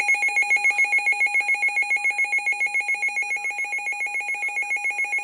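Weather radio's built-in alert alarm sounding for a received warning: a loud electronic warble that alternates between two high pitches over a steady lower tone, pulsing about eight times a second.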